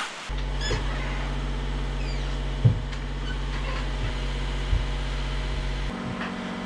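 A steady low mechanical hum with a few soft knocks. The hum changes to a higher pitch near the end.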